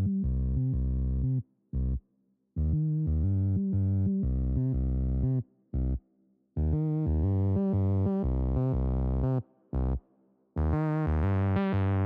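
Background music: synthesizer chords played in phrases, broken by short gaps of complete silence.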